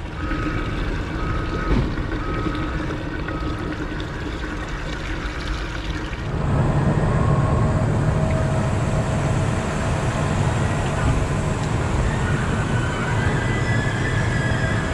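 Used motor oil pouring from a plastic jug into a waste-oil tank, starting about six seconds in and running steadily. Before it, a faint beeping repeats in the background.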